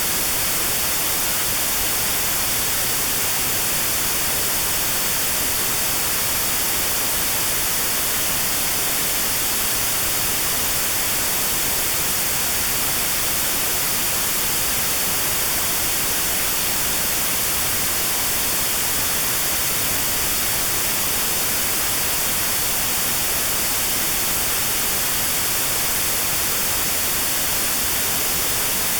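Steady white noise with a narrow band around 4 kHz notched out: notched sound therapy for tinnitus at 4 kHz.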